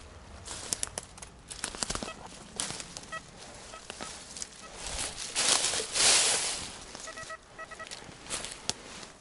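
Footsteps and rustling through dry leaves and twigs, with many small cracks and clicks and a louder rustle a little past the middle. A few faint short beeps sound about three seconds in and again near the end.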